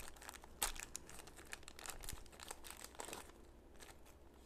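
Plastic packaging being handled and crinkling: a quick run of faint small crackles that thins out after about three seconds.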